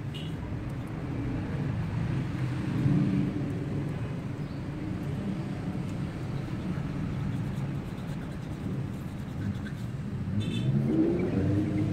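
A motor vehicle's engine running in the background with a steady low rumble, rising in pitch near the end.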